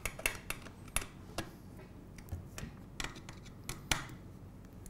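Scattered light metallic clicks and scrapes of a hex screwdriver tightening M3 hex cap screws in an aluminium C-channel, the sharpest click about four seconds in.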